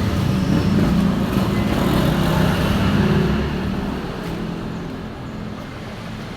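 A motor vehicle engine running nearby, then fading away over the last few seconds.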